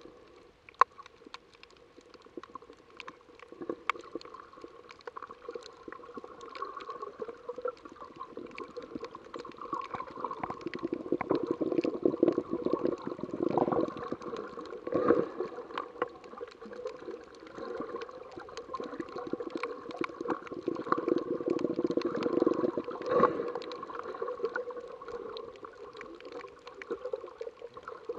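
Underwater sound picked up by an action camera while snorkeling over a coral reef: water sloshing and gurgling that swells louder through the middle, over a steady faint hum, with scattered faint clicks.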